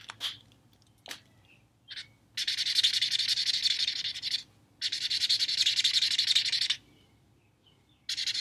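Spectrum Noir Tri-Blend marker tip scrubbed rapidly back and forth on marker paper, blending ink. A dry, hissy scratching comes in two long stretches of about two seconds each, with a few short strokes before them and another stretch starting near the end.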